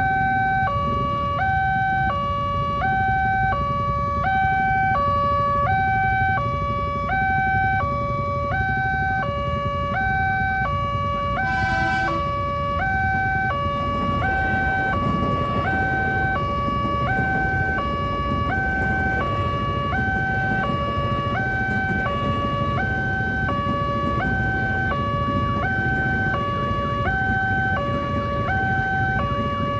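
Railway level-crossing warning alarm sounding a steady two-tone high-low pattern, about one cycle a second, over a low traffic rumble. It signals that the crossing barrier is closing or closed for a train.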